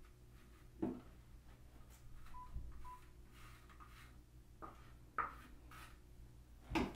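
Two short electronic beeps about half a second apart, over a low steady hum, with a few light knocks around them.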